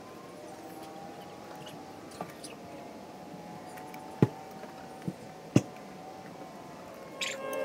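Hens moving about a backyard coop run: a quiet background with a few sharp taps, the loudest about four and five and a half seconds in. Near the end a loud sound with gliding tones starts up.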